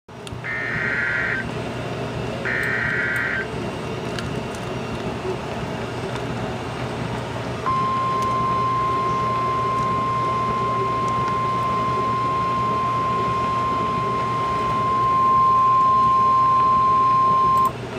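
NOAA Weather Radio emergency alert: two roughly one-second bursts of screechy SAME data tones, the encoded alert header, near the start. A few seconds later comes the steady 1050 Hz weather-radio warning alarm tone, held for about ten seconds and cutting off sharply near the end. It signals a National Weather Service warning, here a severe thunderstorm warning.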